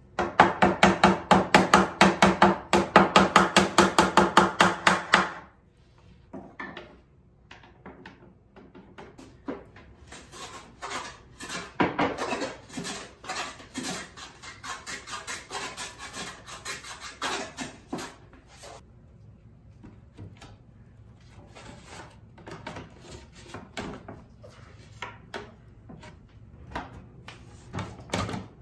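A hand tool worked rapidly back and forth on a pine board clamped upright in a bench vise. A loud, even run of about six scraping strokes a second lasts some five seconds, then gives way to quieter, irregular strokes and knocks.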